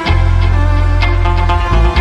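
Background music with heavy bass and a steady beat.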